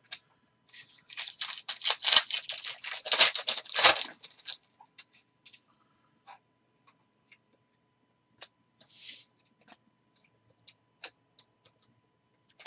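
Foil wrapper of a Panini Prizm football card pack being torn open and crinkled for about four seconds. After that come sparse soft clicks and slides as the cards are handled.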